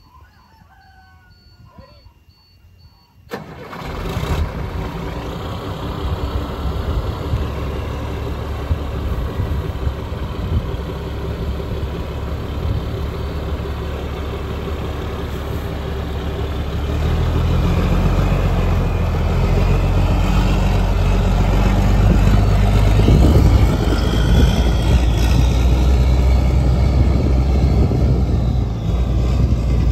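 1997 International 4700 dump truck's diesel engine starting about three seconds in, then idling. From about halfway the engine runs louder as the truck drives off, with the engine note rising a few seconds later.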